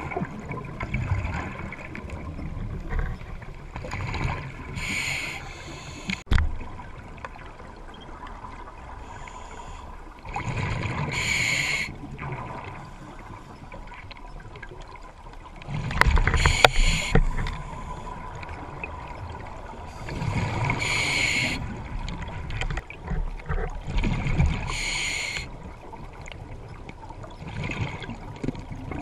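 A scuba diver breathing underwater on an open-circuit regulator: a hiss of air through the regulator and a bubbling exhalation, repeating every four to five seconds.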